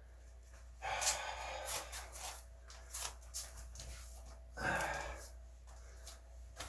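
A man breathing hard after a set of push-ups, with two long noisy exhalations, one about a second in and one near five seconds in, and a few small clicks between.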